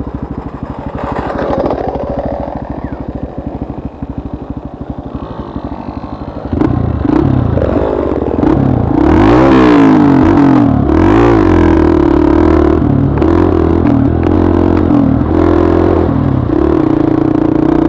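Trail motorcycle engine running steadily at low revs with an even, rapid beat. About six and a half seconds in it gets louder and revs up and down repeatedly as the throttle is worked.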